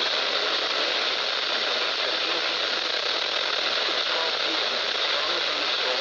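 Steady hiss of radio static from a weak radio signal.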